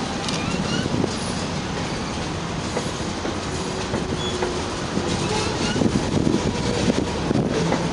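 Freight train's covered hopper cars rolling past: a steady rumble of steel wheels on the rails with clickety-clack over the rail joints.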